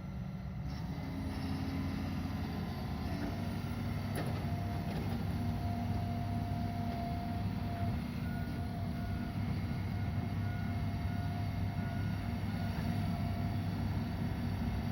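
Log loader's diesel engine running steadily under load as it works its hydraulics, with a thin whine that comes and goes from about a third of the way in. One sharp knock sounds about four seconds in.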